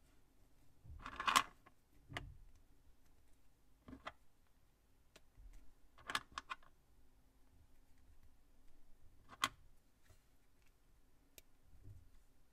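Small plastic Plus-Plus building pieces clicking as they are handled and snapped together: about seven separate sharp clicks, the loudest about a second in.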